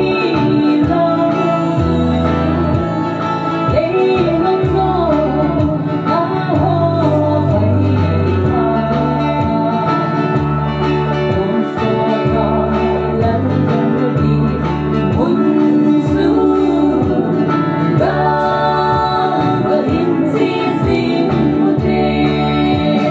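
A woman singing a song into a microphone, amplified, over backing music with a steady repeating bass line.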